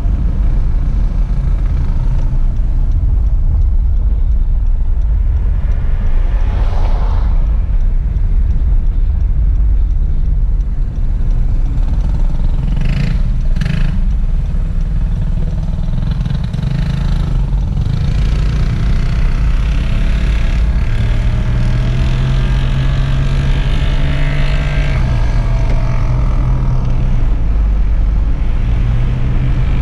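Steady rumble of a car driving along a road, heard from inside the cabin, with a couple of brief whooshes. A steadier engine drone rises out of it in the second half.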